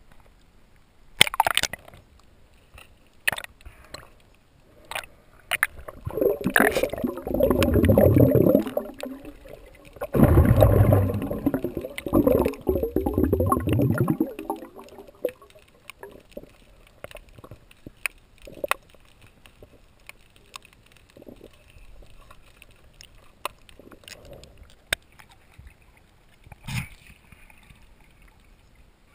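Water sloshing and splashing around a small boat, with two longer, louder stretches of churning water a few seconds in and scattered sharp knocks throughout.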